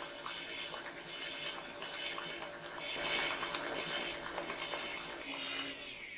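Stand mixer running on low with its flat beater, churning thick whipped cream under a plastic-wrap cover: a steady motor whir mixed with wet slapping and sloshing as the beater folds the cream down and knocks the air out, the early stage of turning cream into butter. The sound begins to die away at the very end.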